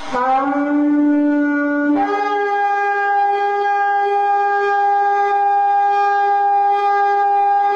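A long horn blast sounding the trumpet call of the Rapture. A lower note slides up slightly, then about two seconds in it jumps to a higher note that is held steadily.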